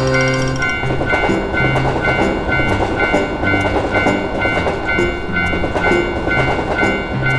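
Railroad crossing warning bell ringing "kan kan", a steady repeated two-tone ding about twice a second, over the rushing rumble of a passing train.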